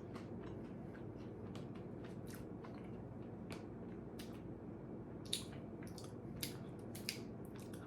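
A person chewing crunchy spicy corn snacks: scattered small crisp crunches that come more thickly in the last few seconds.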